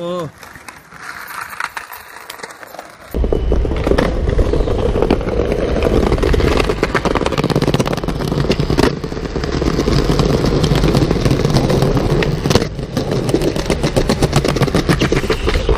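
Skateboard wheels rolling on concrete plaza paving, heard close to the ground: a loud, dense rolling rumble full of small clicks, with a few stronger knocks. It starts abruptly about three seconds in, after a quieter stretch.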